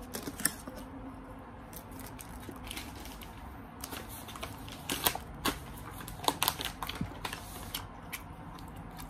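Crackles and sharp clicks of a crisp-fried whole chicken being torn apart by hand on its paper wrapping, coming in scattered bursts and thickest about five to seven seconds in.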